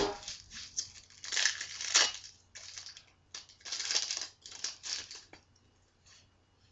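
Foil trading card booster pack crinkling as it is handled and torn open, in irregular bursts that stop about five seconds in.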